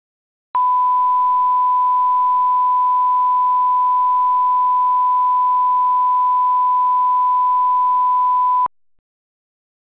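Steady 1 kHz reference tone, the line-up tone played with SMPTE colour bars. It comes in about half a second in and cuts off suddenly about a second before the end.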